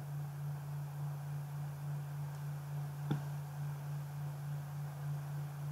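Steady low hum on the recording with faint hiss, and one short click about three seconds in.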